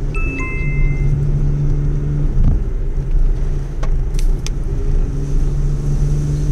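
Steady drone of a car's engine and road noise heard from inside the cabin while driving, with a low hum throughout. A short two-note electronic beep, the second note a little lower, sounds just after the start.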